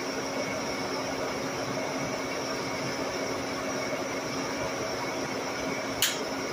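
Steady whirring of shop machinery with a faint high tone, then a single sharp hammer blow on metal about six seconds in, ringing briefly.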